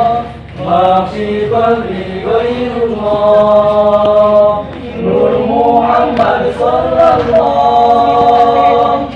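A group of young men singing a qasidah together in unison, holding long notes with short breaks about half a second in and again near five seconds in.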